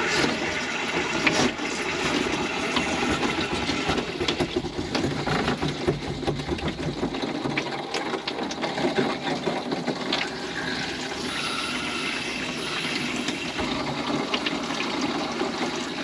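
Water and trapped air rushing and sputtering through an RV water heater's newly fitted check valve and plumbing as the tank fills: air pushing through the valve makes the noise, a steady rush with irregular crackling that evens out a little after about ten seconds.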